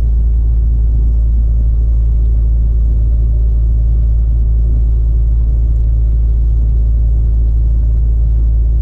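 Steady low rumble inside the cab of a Volvo FH16 660 truck on the move: its 16-litre straight-six engine and road noise, holding an even level throughout.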